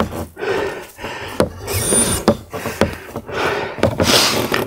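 Scattered knocks and clunks of wood with rustling, from the large wooden plank boat and loose boards being handled and shifted.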